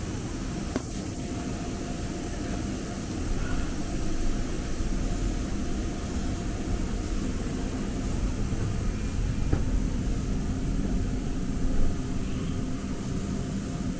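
Inside a Muni Metro light-rail car as it rides: a steady low rumble with a faint steady whine and a couple of light clicks. It swells slightly a few seconds in.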